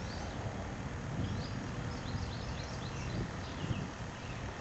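Small birds chirping repeatedly over a low steady rumble.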